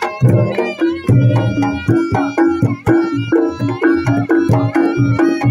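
Reog Ponorogo gamelan music: hand-played kendang drums and tuned percussion keep a fast, steady beat, with a pitched melody running over it.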